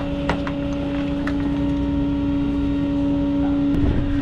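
Rollback tow truck running: a steady whine over a constant low engine rumble, with a few sharp clicks and knocks from the straps being handled.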